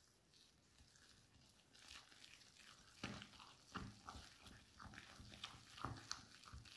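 Hand whisk beating flour into thick pumpkin fritter batter in a glass bowl: soft wet squishing with irregular clicks and knocks, louder from about three seconds in.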